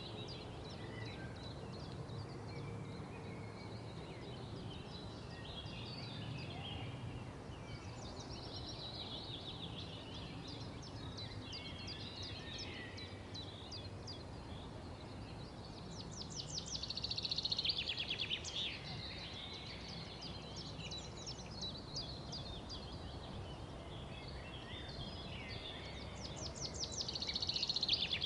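Wild songbirds singing: a few bouts of chattering song with fast trills, the loudest about two-thirds of the way in and again near the end. A steady low background noise runs underneath.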